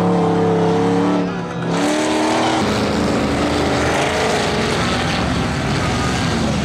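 Engines of stripped-down racing combine harvesters running hard at high revs. The sound dips briefly about a second and a half in, then an engine note rises and several machines are heard together.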